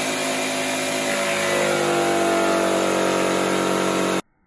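A motor or engine running steadily after starting up, its pitch dropping at first and then holding; it stops abruptly near the end.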